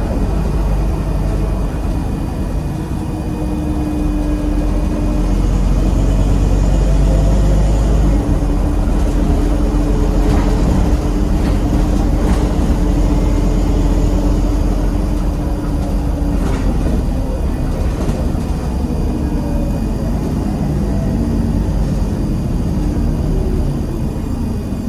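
Scania N230UD double-decker bus's nine-litre five-cylinder diesel pulling hard, heard from inside the saloon as a deep, steady engine drone that builds over the first few seconds and then holds. A few sharp knocks from the bus body come about ten, twelve and sixteen seconds in.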